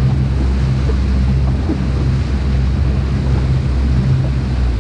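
Boat engine running steadily while the boat is underway, a constant low hum, with wind on the microphone and water rushing past the hull.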